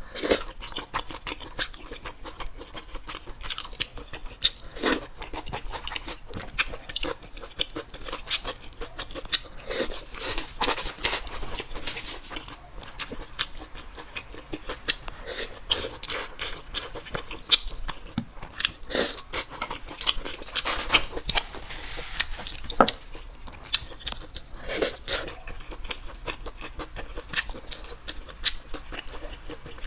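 Close-miked eating: a person biting and chewing Chinese food, likely kaolengmian (grilled cold noodles), with irregular crunches and sharp mouth clicks scattered throughout.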